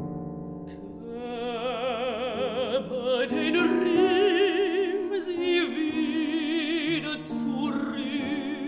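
A trained female classical voice singing long held notes with a wide, even vibrato over grand piano accompaniment, swelling in loudness a second or so in and easing off near the end.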